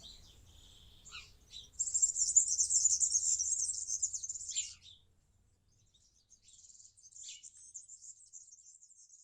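A small bird singing: a few short high notes, then a rapid high twittering song for about three seconds, and a fainter run of twittering near the end.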